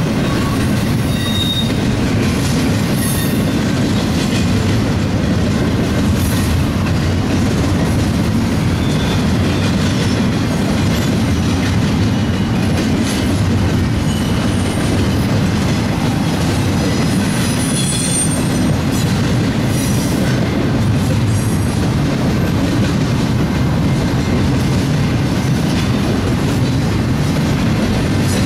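BNSF double-stack container train rolling past, its well cars' wheels making a steady loud rumble on the rails, with short high wheel squeals now and then.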